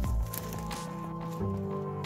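Background music of held, sustained notes, changing chord about one and a half seconds in.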